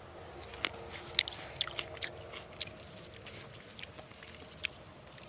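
A person biting into and chewing fresh grapes close to the microphone. There is a quick run of sharp, crisp clicks in the first three seconds and one more near the end, over a faint steady hum.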